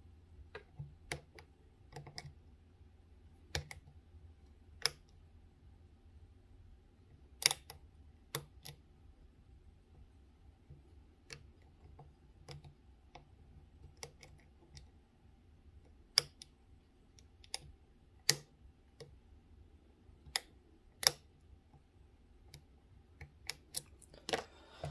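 Irregular small metallic clicks and ticks, single or in quick pairs, from a hook pick and tension wrench working the pins inside a Best Cormax 7-pin SFIC lock cylinder, over a faint steady hum.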